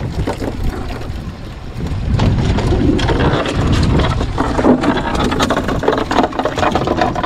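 Wind buffeting the microphone and sea noise aboard a small fishing boat, with scattered knocks and slaps as live bait fish are handled on the deck and in the bait tank.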